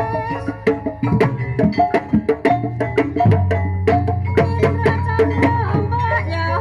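Live kuda kepang ensemble music: quick, dense strikes of drums and struck percussion over steady low held tones, with a wavering melody line above.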